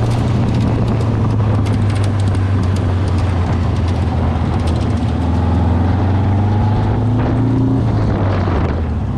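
Racing dune buggy's engine running steadily with wind noise, its pitch climbing slowly for several seconds and then dropping off near the end.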